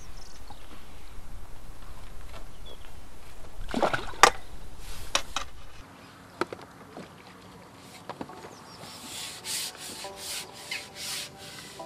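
Low wind rumble on the microphone with rubbing and clicking from fishing tackle being handled, including a sharp click about four seconds in. The rumble stops suddenly about six seconds in, and music with a beat comes in near the end.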